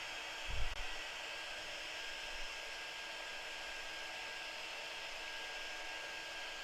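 Craft heat tool running steadily, a hiss of blowing hot air with a faint steady hum, drying a layer of chalk paste so that the next layer won't pull it up. A low bump about half a second in.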